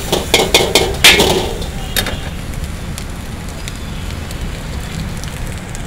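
Metal ladle striking and scraping a large iron wok as fried rice and noodles are tossed: a few sharp clanks in the first two seconds, the loudest about a second in. Under it, a steady rushing noise from the gas burner.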